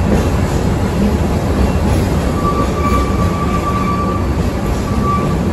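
Ikawa Line train running, heard from inside the carriage: a steady low rumble of wheels on rail. A thin, steady high whine comes in about two seconds in and fades near the end.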